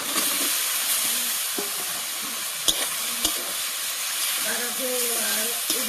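Potato chunks tipped into hot oil and fried onions in a steel kadai, setting off a sizzle. A steel spatula then stirs them, with two sharp clacks of metal on the pan about three seconds in.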